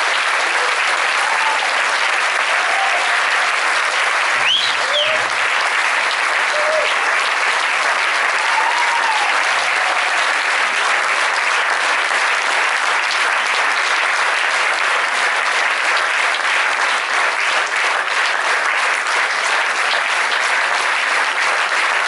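Concert audience applauding steadily, with a few short shouts from the crowd in the first half.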